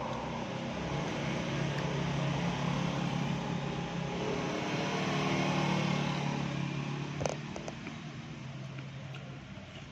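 A motor vehicle engine running, growing louder until about six seconds in and then fading away, with a single sharp click about seven seconds in.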